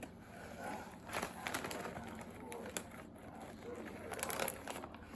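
Rustling and crackling handling noise in two short clusters, about a second in and again near the end.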